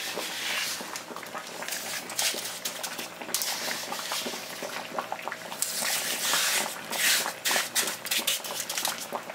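Wet coarse rock salt crunching and scraping as a hand presses and packs it over a whole fish, a steady run of small crackles.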